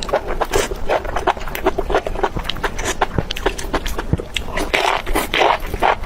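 Close-miked eating: chewing and crunching, a dense run of sharp clicks and wet smacks.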